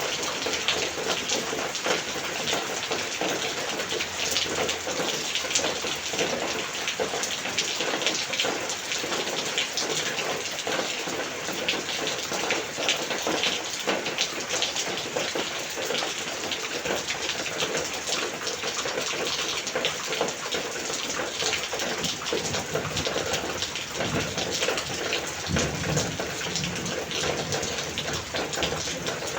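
Monsoon rain falling in a steady downpour: a dense, even hiss of countless drop hits. A brief low rumble comes about four-fifths of the way through.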